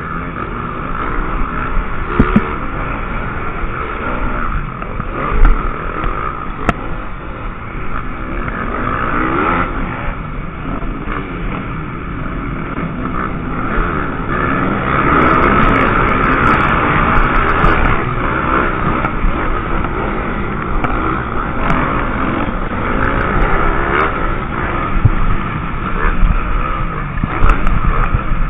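MX2 motocross bike engine running hard, heard from on board the bike, its revs rising and falling through the turns. The engines of other motocross bikes racing close around it blend in.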